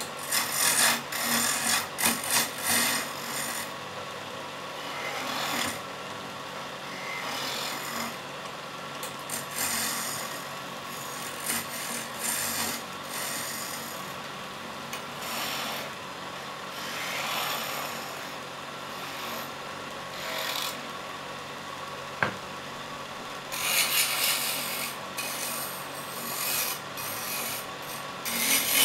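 Hand chisel cutting a wooden spindle on a spinning wood lathe: bursts of scraping hiss as the shavings come off, over the steady hum of the running lathe. The cutting is heaviest in the first few seconds and again near the end, with one sharp click partway through.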